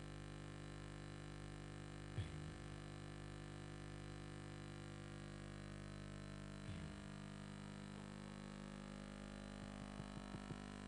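Faint steady electrical hum of several steady tones, as from a sound system left open, with two brief faint sounds about two seconds in and about seven seconds in.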